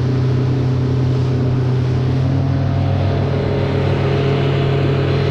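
A 115-horsepower outboard motor running steadily at cruising speed, an even drone over the rush of water and wind as the skiff planes.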